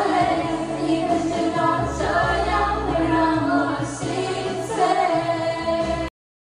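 Pop song with a singer over a steady backing track, cutting off abruptly to dead silence about six seconds in.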